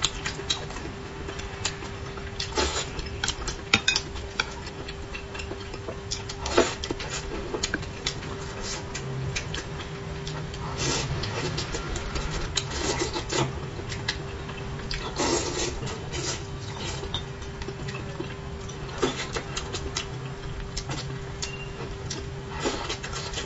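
Close-up eating of spicy braised fish: scattered clicks of chopsticks against the platter and bowl, with chewing and lip-smacking mouth sounds, over a steady faint hum.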